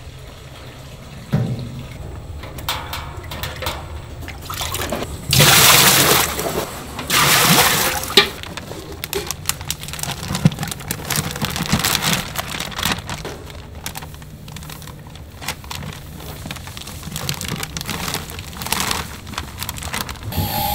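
Cooking oil pouring in a stream from a jug into a stainless-steel deep fryer. Then a plastic bag rustles as flour is dumped from it into a steel pot.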